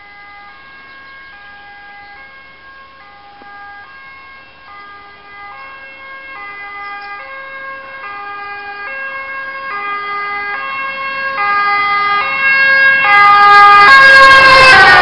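Two-tone emergency vehicle siren alternating between a high and a low note. It grows steadily louder as it approaches, then drops in pitch near the end as the vehicle passes, with vehicle rumble coming in.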